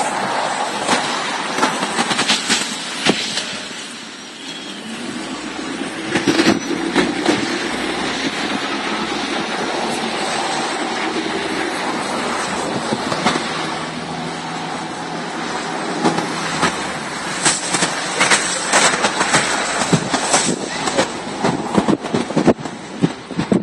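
Vehicle noise, with many sharp clicks and knocks throughout; a steadier low drone sets in about five seconds in and fades after about ten seconds.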